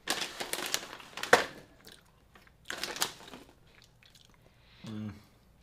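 Crunching and crinkling from snacks being eaten and their packaging being handled, in irregular bursts with a sharp crack about a second and a half in and another burst near the middle.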